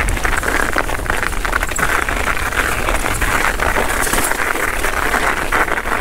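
Rock Machine Blizzard mullet enduro mountain bike being ridden on a dirt trail: the steady rolling noise of its tyres with a constant patter of small clicks and rattles, over a low rumble.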